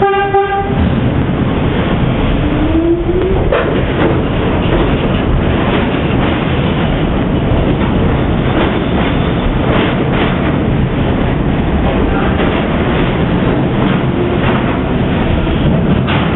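NYC subway garbage train, a refuse motor car hauling container flatcars, running along the station track: a steady loud rumble and rattle of steel wheels on rail with scattered clacks. A brief pitched tone sounds right at the start, and a short rising whine follows about three seconds in.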